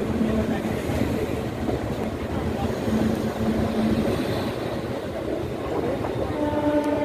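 Passenger express train running at speed through a station, heard from an open coach door: a steady rumble and clatter of wheels on the track. The train horn sounds briefly near the end.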